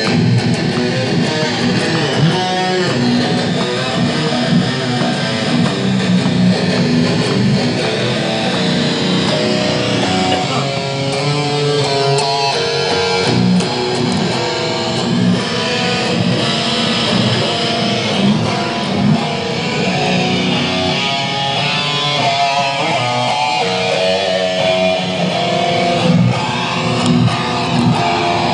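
Electric guitar played freestyle, lead lines with quick runs of notes, playing without a break.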